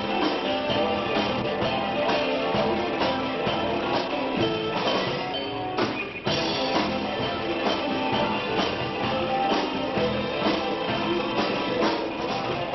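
Live rock band playing with a prominent drum kit and electric guitar; the sound dips out briefly about halfway through.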